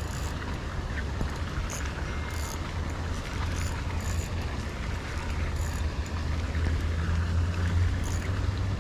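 Wind buffeting the camera's microphone, a steady low rumble, with a few faint high ticks scattered through it.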